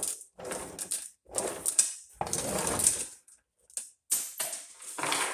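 Loose metal sockets clattering and clinking against each other as they are handled and tossed onto a pile, in a string of short, irregular bursts.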